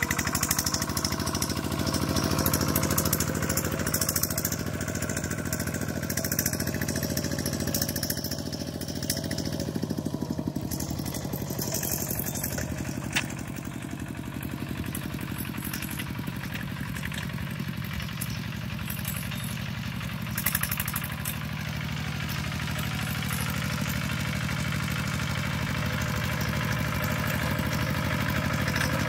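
Kubota RT120 walking tractor's single-cylinder diesel engine running steadily under load while tilling, fainter as it moves off across the field and louder again as it comes back.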